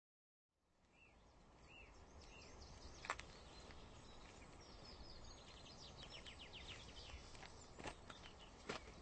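Silence, then faint outdoor ambience fades in: small birds chirping in quick falling notes, more of them in the second half, with a few soft footsteps.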